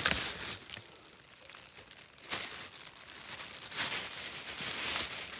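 Plastic bag crinkling and rustling as it is handled, with a few sharper crackles, while a freshly caught loach is put into it.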